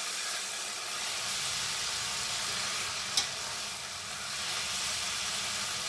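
Bhindi masala (chopped okra with onions and spices) sizzling in oil in a metal pan as it is stirred with a spoon: a steady hiss, with one sharp click about three seconds in.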